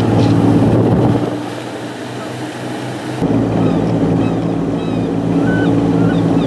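Boat engine running steadily under way, a low drone with wind and water noise over it. The low end of the drone falls away a second or so in and comes back abruptly about three seconds in. Short bird calls sound through the second half.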